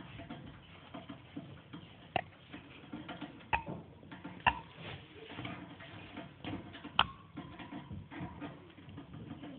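Gerbils stirring in their cage bedding: soft rustling with a run of small ticks and clicks, and four sharper clicks spread through it.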